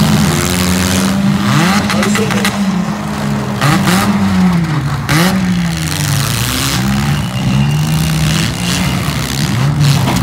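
Four-cylinder demolition derby car engines revving up and down over and over, with a few short bursts of rushing noise.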